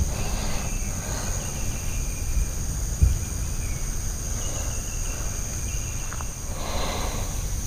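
Steady, high-pitched chorus of crickets, with a low rumble on the microphone and a single knock about three seconds in.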